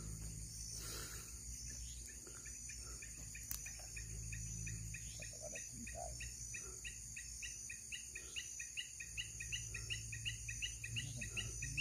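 Night chorus of crickets and other insects: a steady high-pitched trill, joined about a third of the way in by a rhythmic chirping call at about four pulses a second.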